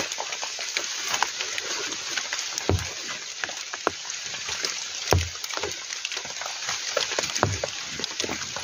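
Heavy rain falling as a steady hiss, with many scattered sharp taps and a couple of dull thumps about three and five seconds in.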